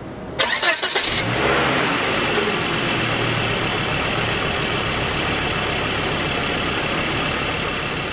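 1998 Volvo V70 GLT's light-pressure turbocharged five-cylinder engine cranked briefly by the starter, catching about a second in and then idling steadily, with its popped-off intake hose refitted.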